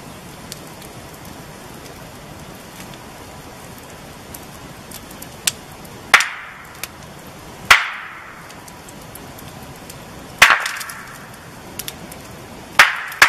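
Two rocks struck together by hand, four loud sharp clacks at uneven gaps of one and a half to three seconds, each with a short ringing tail, over a steady background hiss. This is rock clacking done as a call, to draw a knocking response from the mountain.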